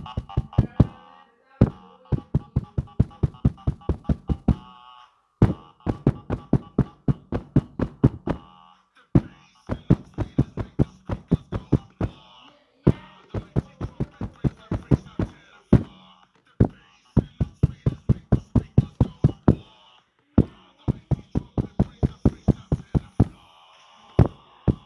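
An electronic musical gadget giving steady beeping tones together with a fast run of sharp knocks, about four to five a second. The knocks come in bursts of a few seconds, broken by short pauses.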